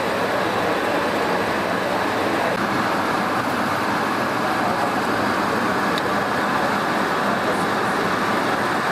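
Steady background din of an exhibition hall, with no distinct events standing out.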